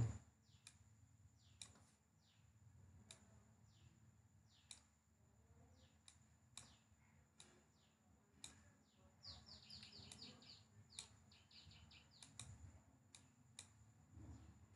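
Near silence with faint computer mouse clicks every second or two and faint background bird chirps: short, falling notes, with a quick run of them about two-thirds of the way through.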